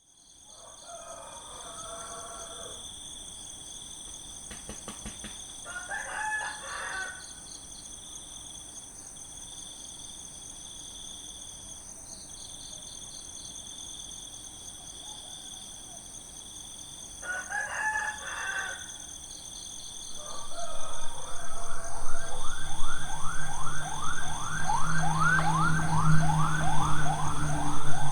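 Roosters crowing three times over a steady high-pitched drone. About two-thirds of the way through, a vehicle approaches, its engine hum and road noise growing loud.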